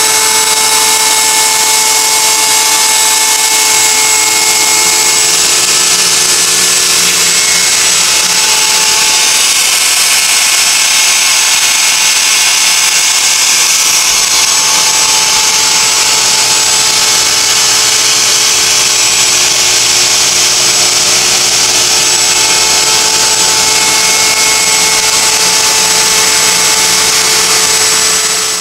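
Wood router on a router table running steadily at high speed with a constant whine, together with the rushing air of its vacuum dust collection.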